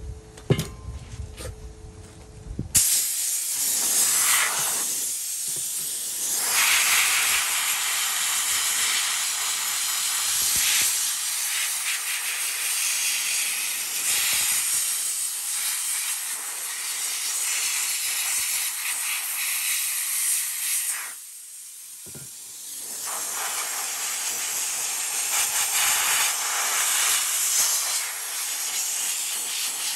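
A few light knocks, then the nozzle of an Eastwood pressure-pot sandblaster starts suddenly with a loud, steady hiss as abrasive blasts rust off corroded steel plow brackets. The blast stops for about two seconds a little over two-thirds of the way through, then resumes.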